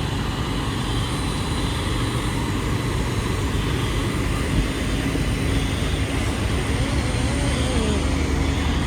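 Fire apparatus diesel engines idling, a steady low rumble with a constant hum.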